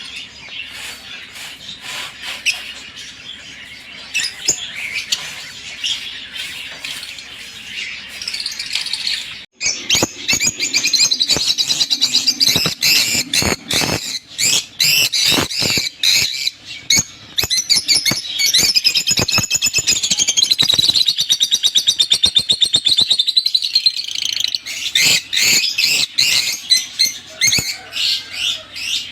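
African lovebirds chattering in rapid, high chirps and squawks. The sound drops out briefly about ten seconds in, then comes back louder and denser.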